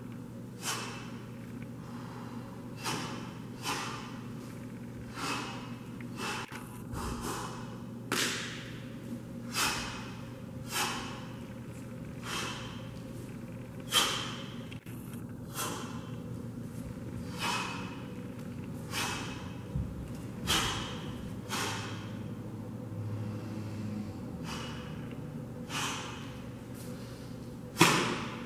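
A string of sharp snaps and whooshes, roughly one every second or so, from the strikes and blocks of a taekwondo pattern, the uniform snapping with each technique and the hall adding a short echo. The loudest snap comes near the end.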